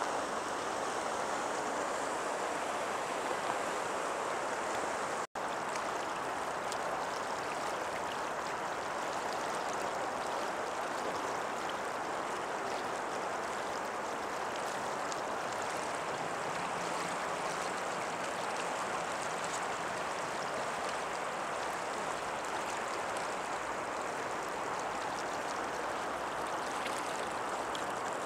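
Steady rush of the Grand River's current flowing past the bank, with a momentary dropout in the audio about five seconds in.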